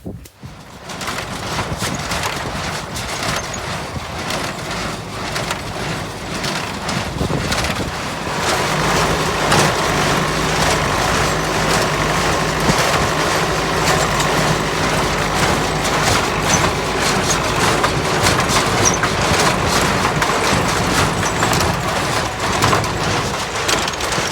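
1971 David Brown 990 tractor running with a New Holland 268 square baler in work, a steady engine note under a busy mechanical clatter. It gets louder about eight seconds in as the machine comes up to working speed.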